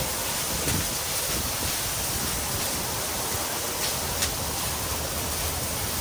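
Chicken pieces sizzling steadily on a Blackstone flat-top griddle, with a few faint clicks from a spatula turning them.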